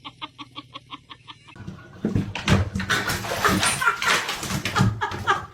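An animal's quick repeated calls, about seven a second, then a louder, jumbled stretch of calls and noise from about two seconds in.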